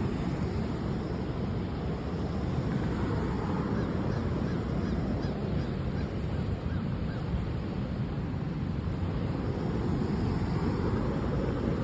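Steady outdoor noise, strongest in the low range, with faint honking bird calls scattered through the first half.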